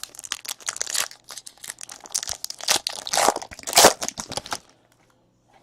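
Foil trading-card pack wrapper being crinkled and torn open, a dense run of crackling and ripping that stops about three-quarters of the way through.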